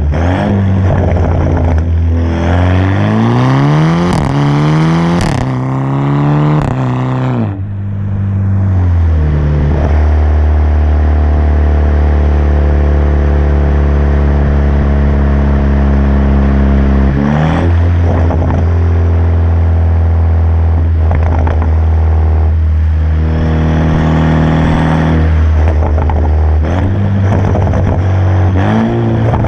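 BMW 328i's 2.0-litre turbocharged four-cylinder, heard through an M Performance catback exhaust with the muffler and resonator deleted and an aftermarket downpipe, revving loudly. The pitch climbs for a few seconds, drops away sharply, then sinks slowly, and several shorter throttle blips follow near the end.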